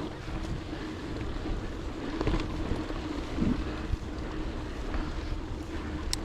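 Scott Spark mountain bike rolling along a dirt trail: tyre and drivetrain noise with small knocks and rattles from the bike, and wind rushing over the microphone.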